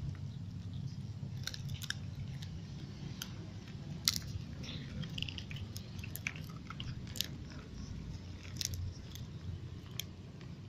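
Cats and kittens chewing and biting puffed cracker sticks, with scattered sharp crunches over a low steady hum.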